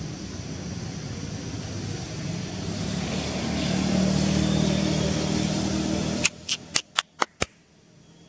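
A motor vehicle engine running nearby, growing louder and then cutting off abruptly about six seconds in, followed by a quick run of six sharp clicks.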